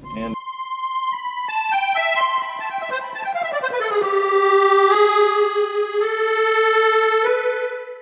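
Accordion music: a run of notes stepping down in pitch, settling about four seconds in on a long held chord.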